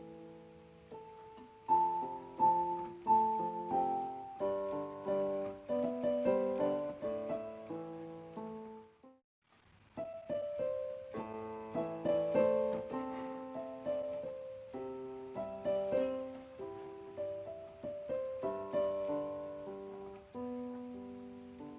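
Background piano music: a gentle melody of struck notes that pauses briefly midway, then carries on.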